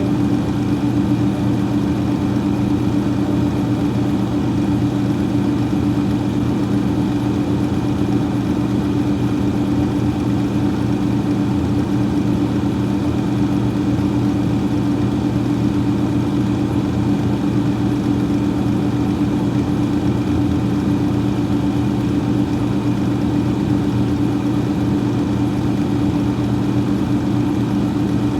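Freezer fan running steadily: a constant hum with a few steady low tones over an even whoosh of moving air.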